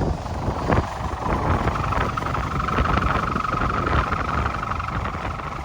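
Sendaren hummer on a 3.5 m layangan bulan (moon kite) humming in strong wind: a steady high-pitched drone that settles in about a second and a half in, over wind rumble on the microphone.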